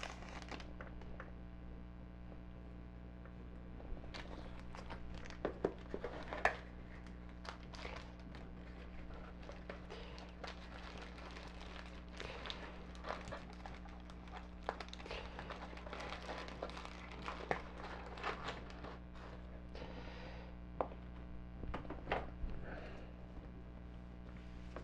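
Faint handling sounds of a foil trading-card booster wrapper and cards: scattered crinkles, rustles and light clicks over a steady low hum.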